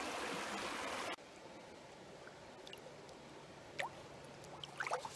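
Stream water rushing over rocks, cut off abruptly about a second in; then a quieter trickle with a few small drips and splashes as a hand lets a rainbow trout go in shallow water.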